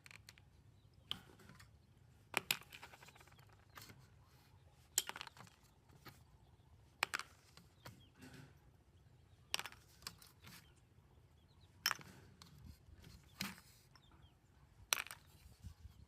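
Sharp clicks and knocks of hard parts and hand tools being handled while working on an old amplifier, one every second or two at uneven intervals.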